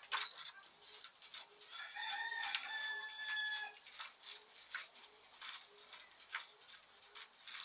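A rooster crowing once, starting about two seconds in and lasting about two seconds, over scattered sharp clicks and ticks.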